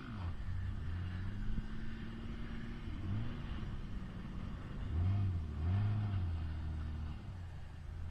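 Off-road 4x4's engine revving in repeated throttle bursts, its pitch rising and falling several times. The loudest two revs come about five and six seconds in.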